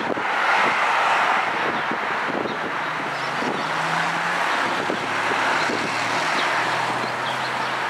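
Road traffic noise: a vehicle going by, loudest about a second in, over a low steady engine hum.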